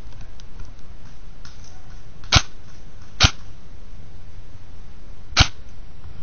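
Three single airsoft gun shots, each a short sharp crack: two a little under a second apart, the third about two seconds later.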